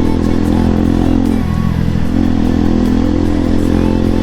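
Bajaj Pulsar NS200's single-cylinder engine running under way, easing off briefly about a second and a half in before picking up again.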